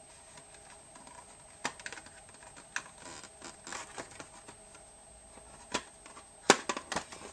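Packaging of boxed cooling fans being worked and pushed out of a tight box: scattered clicks, taps and knocks, with the sharpest knock and a quick cluster of clicks about six and a half seconds in.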